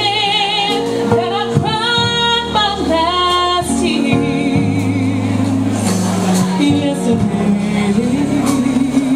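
A woman singing into a microphone, holding long notes with vibrato, over an instrumental accompaniment of sustained notes.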